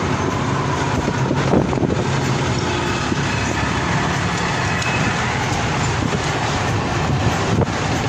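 A bus's engine running steadily while the bus drives along, with road and wind noise through its open windows, heard from inside the passenger cabin.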